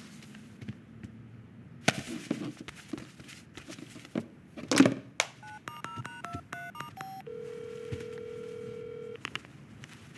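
Rustling and knocks with a loud thump about halfway, then a quick run of about eight telephone keypad dial beeps, followed by a steady tone lasting about two seconds.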